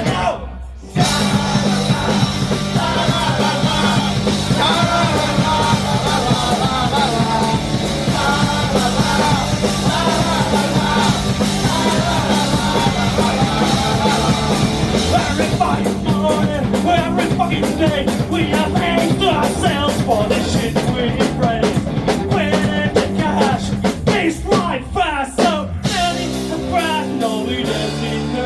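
Live punk-rock band playing, with drums, guitars and a singer, loud and steady apart from a brief dropout just after the start.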